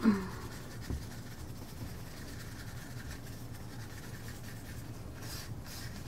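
Stir stick scraping around the inside of a small cup while mixing art resin: faint at first, then distinct rhythmic scraping strokes near the end.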